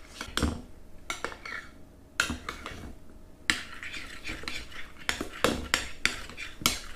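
A utensil stirring a thick slime mixture of glue and shaving foam in a bowl, with irregular scraping and clinking against the bowl's sides, coming thicker and faster in the second half.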